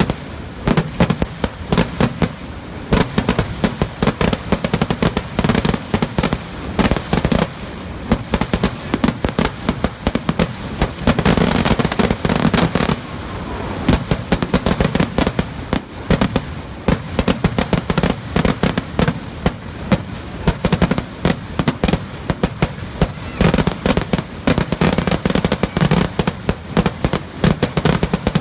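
Kerala-style festival fireworks (vedikettu): a dense, continuous barrage of rapid firecracker bangs, many a second, thickening into an even denser rolling stretch about midway.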